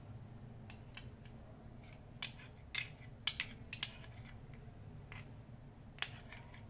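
Faint, scattered light clicks and ticks, about a dozen spread over several seconds, with the loudest grouped in the middle, over a steady low room hum.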